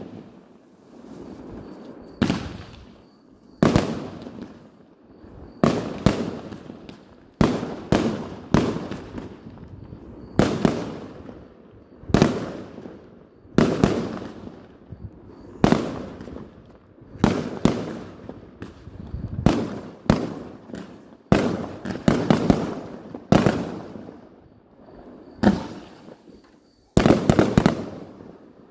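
Fireworks display: aerial shells bursting one after another, a sharp bang about every second, each trailing off in an echo. A quick cluster of bangs comes near the end.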